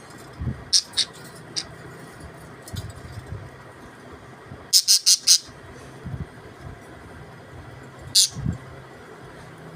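Budgerigars giving short, sharp chirps: a few single chirps in the first couple of seconds, a quick run of four about five seconds in, and one more near the end, over a faint steady hum.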